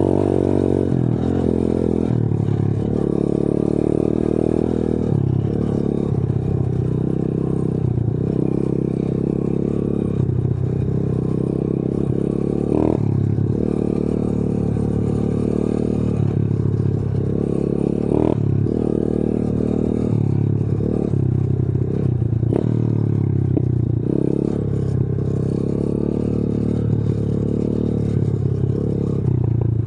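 125 cc pit bike's single-cylinder four-stroke engine running on the move, its pitch rising and falling with the throttle, with the bike clattering over a rough dirt track. There are a few short knocks.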